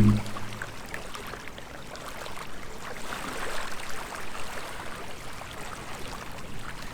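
Sea waves washing onto the shore, a steady wash of surf that swells a little and eases.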